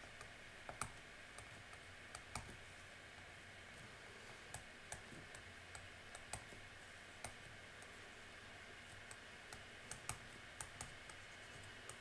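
Light, irregular clicks and taps of a stylus on a tablet's writing surface as an equation is handwritten, over a faint steady hiss.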